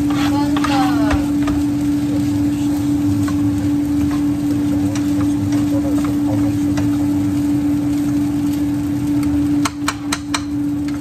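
Wooden spatula stirring and scraping fried rice in a nonstick frying pan over a gas burner, over a steady hum. Near the end come four sharp taps of the spatula against the pan.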